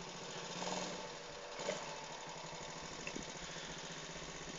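Small quad bike's engine running at a distance, faint and steady, swelling slightly just under a second in.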